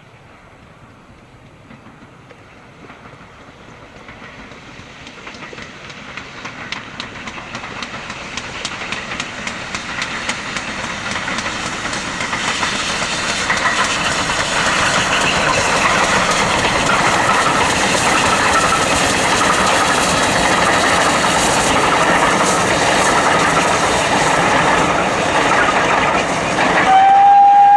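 A steam locomotive hauling a train of coaches approaches and passes. It grows steadily louder over the first half, then runs on loud with a rapid clatter of wheels over the rail joints. About a second before the end, a whistle starts on one steady note.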